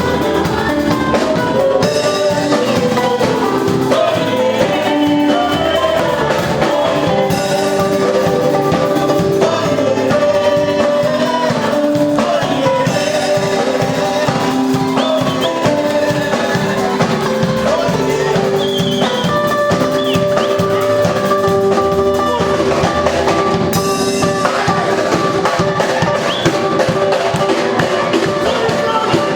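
A live band playing a song, with a drum kit keeping a steady beat under held instrument notes.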